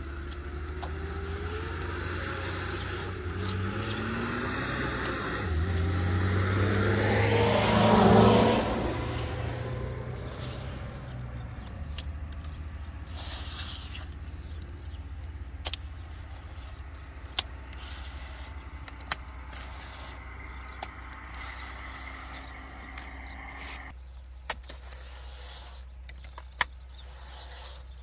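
A motor vehicle's engine, rising in pitch and growing louder to a peak about eight seconds in, then fading away, over a steady low hum. Later come a few short, sharp knocks.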